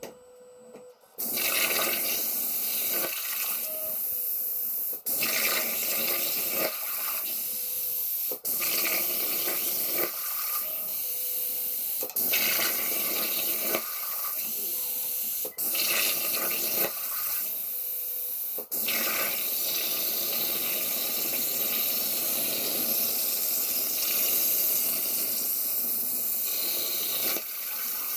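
Hypertherm plasma torch on a CNC plasma table cutting quarter-inch A36 steel plate: a loud, steady hiss of the arc and torch air that starts about a second in. It breaks off for a split second about five times in the first two-thirds, then runs on unbroken.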